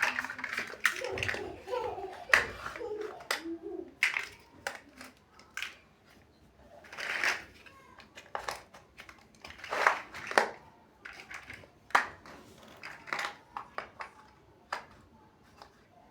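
Plastic building bricks clicking and rattling as they are handled and pressed together, in irregular sharp clicks, some louder than others.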